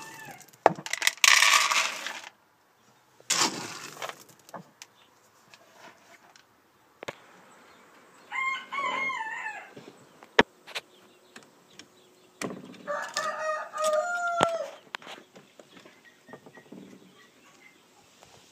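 Rooster crowing twice, about eight seconds in and again about four seconds later, the second crow longer and ending in a falling glide. Loud rustling handling noise in the first few seconds and a sharp click between the crows.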